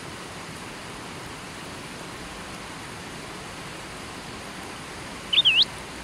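River water rushing steadily. Near the end a single short bird chirp dips and then rises sharply in pitch, and it is the loudest sound.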